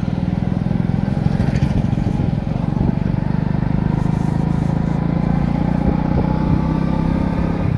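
Motor vehicle engine running steadily, with a fast, even low pulsing.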